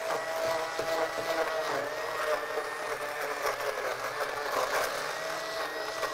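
Stick blender running steadily in a pot of tomato soup, puréeing it smooth; the motor holds one even pitch throughout.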